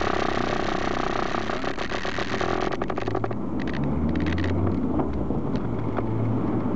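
Car cabin noise while driving: engine and road noise heard from inside the car. A loud rushing hiss with rapid crackling fills the first three seconds, then it drops to a low engine drone that shifts in pitch a few times.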